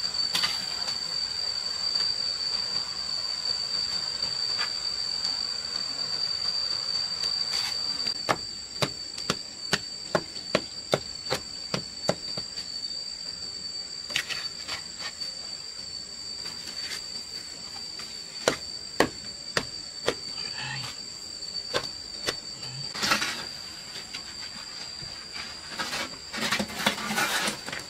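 Steady high-pitched insect drone, with a run of sharp knocks about two a second starting about eight seconds in, then scattered knocks and a few short scraping bursts near the end.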